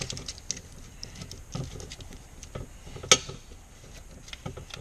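Aluminium foil being crinkled and pressed by hand over an O2 bung on a stainless exhaust pipe to seal it for back purging: a run of small crackles and light taps, with one sharper click about three seconds in.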